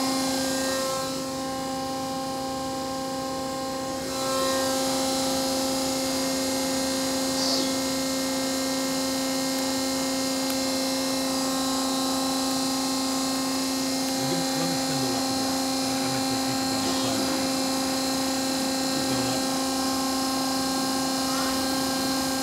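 Mazak QT-15N CNC lathe running with its chuck spinning: a steady machine hum with several constant whining tones. It drops quieter for a few seconds about a second in, then holds steady.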